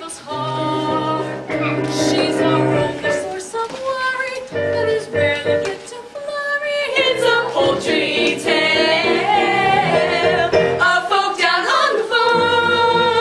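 A musical theatre cast singing together over instrumental accompaniment, with long held notes over a steady bass line.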